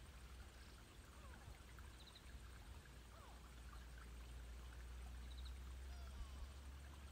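Near silence: faint outdoor ambience with a low steady rumble and a few faint, short, high chirps now and then.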